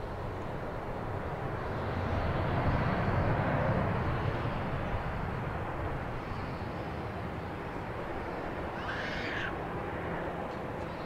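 Steady jet-engine rumble of a taxiing airliner, swelling about two to four seconds in and then easing. A short high-pitched call sounds near the end.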